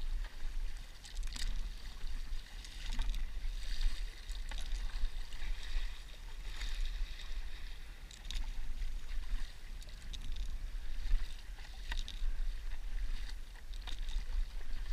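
Stand-up paddle blade dipping into and pulling through calm sea water, with irregular splashes and drips and water washing along the board.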